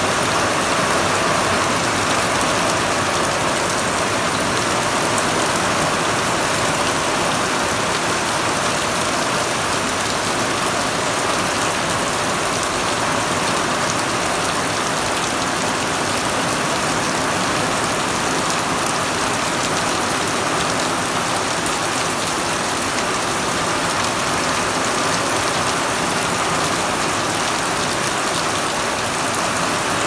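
Heavy rain falling steadily on dense trees and foliage, an even unbroken hiss with no let-up.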